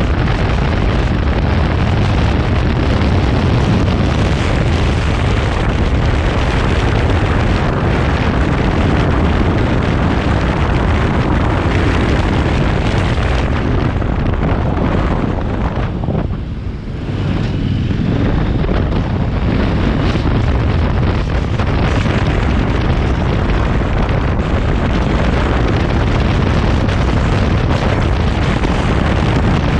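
Heavy wind rush buffeting the microphone on a KTM motorcycle cruising at about 60–70 km/h, with the engine running underneath. The rush eases briefly a little past halfway, then returns.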